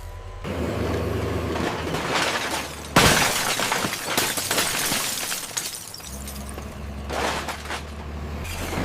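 Cars being smashed: crunching and breaking glass, with a sudden loud crash about three seconds in, then crackling breakage, and another crunch near the end, over a steady low hum.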